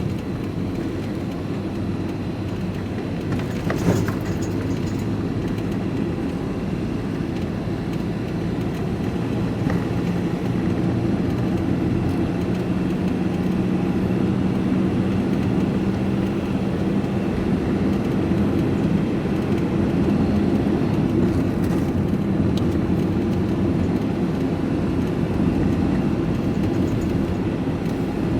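Engine and road noise heard inside a moving vehicle's cab: a steady drone, with a single click about four seconds in, growing a little louder after about eleven seconds.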